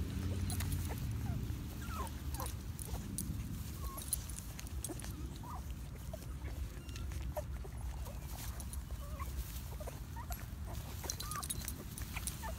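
Pit bull puppies nursing: short, high squeaks and whimpers now and then over a run of small clicks from suckling.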